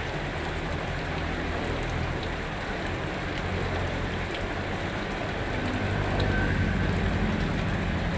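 Steady rush of water with a few faint ticks, and a low rumble that grows louder about five or six seconds in.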